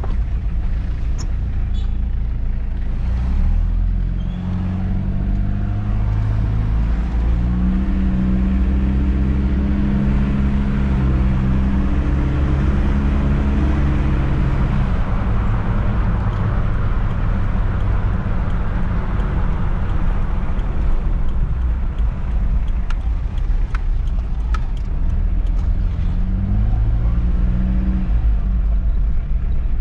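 In-cab sound of a 1995 Mitsubishi Pajero short-wheelbase's 2.8-litre diesel engine with automatic transmission, accelerating with its note rising in steps through the gears. It then settles into cruising with road and tyre noise, and picks up again near the end.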